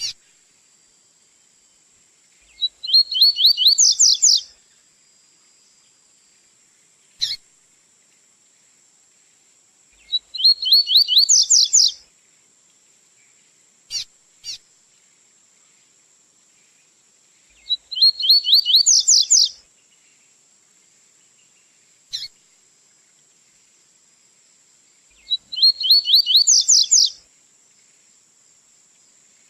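Male double-collared seedeater (coleiro) singing its tui-tui style song: four short phrases of rapid, rising notes, one about every seven to eight seconds, with single sharp call notes between them.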